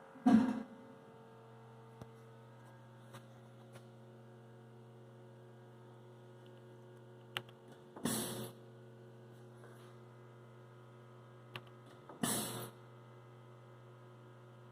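Lasercomb HSP1613 sample-making table humming steadily while it runs its reference run, with three short, loud hissing bursts about a second in, about eight seconds in and near the end, and a few faint clicks.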